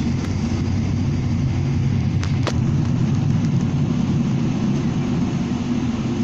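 Steady low rumble inside the cabin of a Boeing 777-300ER as it taxis: the GE90 engines at low thrust and the rolling undercarriage. Two faint clicks about two seconds in.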